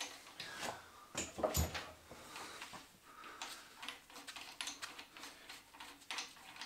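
Light scattered clicks and knocks of hand tools and metal engine parts being handled, with one slightly heavier knock about a second and a half in, as the crankshaft timing gear bolt is worked loose.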